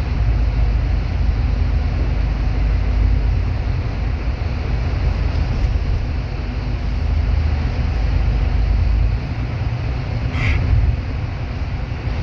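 Bus running with a steady low rumble of engine and road noise, and a brief high squeal about ten seconds in.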